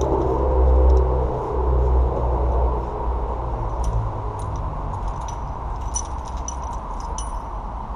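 Hand tools clinking lightly and irregularly, metal on metal, from about four seconds in, over a low rumble that eases off after about three seconds.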